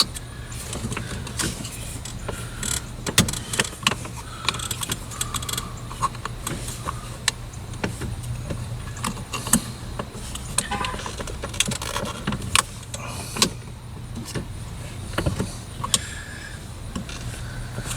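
Plastic interior trim being worked into place around a car's gear shifter console: irregular sharp clicks, taps and rattles of plastic, over a steady low hum.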